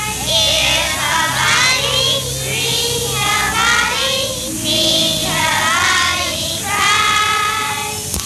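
A group of young children singing a song together in unison, in phrases of a second or two with short breaks between them.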